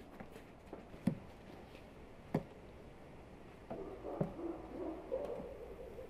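Two sharp knocks, then a dove cooing over and over from about four seconds in.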